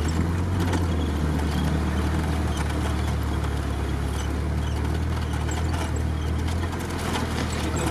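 Off-road vehicle's engine running steadily at low speed, heard from inside the cab with the windows open, with tyre and track noise as it rolls over a wet, muddy forest track.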